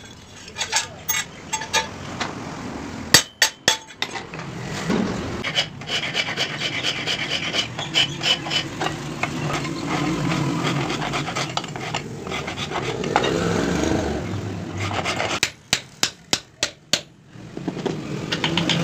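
Hand work on a steel blade: a long stretch of rapid rasping strokes, with a few quick runs of hammer blows on metal, one about three seconds in and a longer one near the end.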